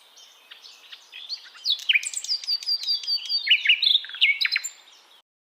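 A songbird singing a fast, varied song of chirps and quick downward-sweeping notes that builds up about a second in and stops abruptly near the end.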